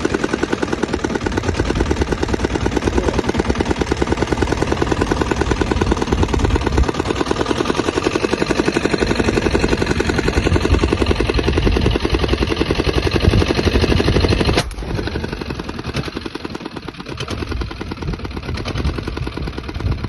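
A motor engine running with a rapid, even pulse. About three-quarters of the way through there is one sharp crack, after which it runs quieter.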